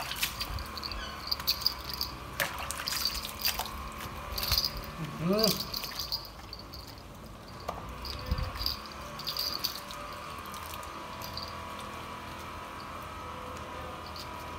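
Water splashing and dripping as it is scooped by hand from a bucket over a wet cat's fur, with a short rising vocal sound about five seconds in. After about six seconds the splashing stops and only faint rubbing and a steady hum remain.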